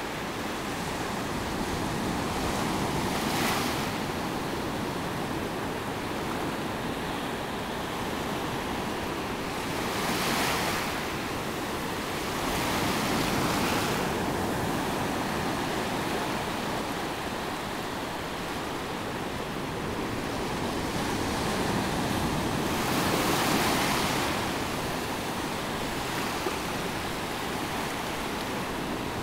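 Small ocean waves washing up the sand in the shallow swash zone: a steady hiss of surf that swells louder four times as waves break and run up the beach.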